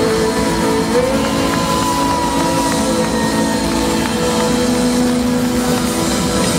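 Live rock band playing through a stage sound system: long held notes, one bending up in pitch about a second in, over a steady full-band backing with no singing.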